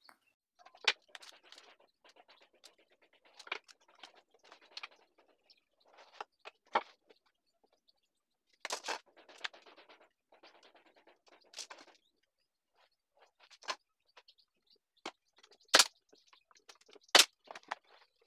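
Scattered light knocks, taps and short scrapes as shelf brackets are set down and shifted on a wooden plank panel. Two sharper knocks come near the end.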